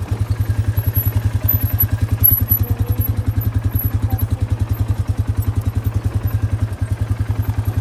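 Four-wheeler (ATV) engine running at a steady low speed, an even, fast putter of about ten pulses a second.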